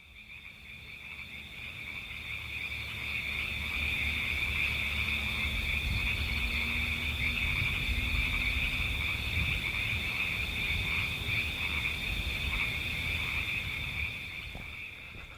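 Steady high-pitched chorus of calling frogs, fading in over the first few seconds and out near the end, over a faint low rumble.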